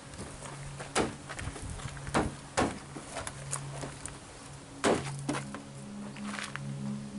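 Plastic grille trim of a Chevy Equinox being pressed back into place: a few sharp snaps and knocks as its clips go in, the loudest about five seconds in.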